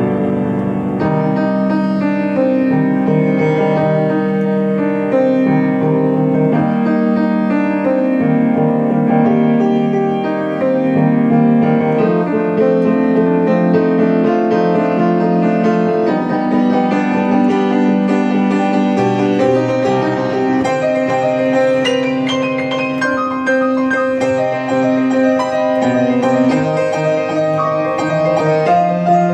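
Solo Yamaha piano playing a fast original piece, with quick notes and chords sounding continuously and no pauses.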